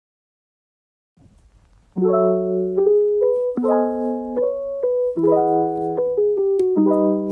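Silence, then background music from about two seconds in: a mellow keyboard track of held piano chords with a simple melody on top.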